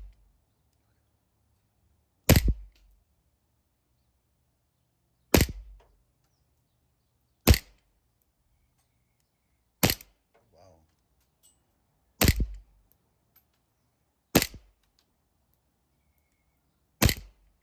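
Seven single shots from a Lancer Tactical Knightshade LTX-6BN-M gas blowback airsoft pistol, each a sharp crack, spaced two to three seconds apart.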